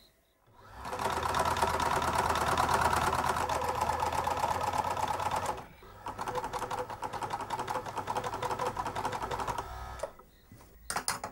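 Electric sewing machine stitching with a rapid, even mechanical clatter of the needle, in two runs of about five and four seconds with a brief stop between.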